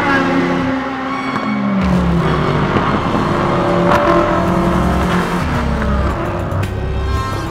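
Race car engines running at speed on the circuit and passing by, one falling in pitch about two seconds in, over background music.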